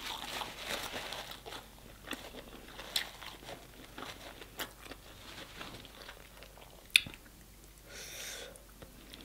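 Close-miked eating of sauce-dipped crab and lobster meat: chewing and biting with small wet mouth sounds and scattered clicks, two sharper clicks about three and seven seconds in, and a brief rustle near the end.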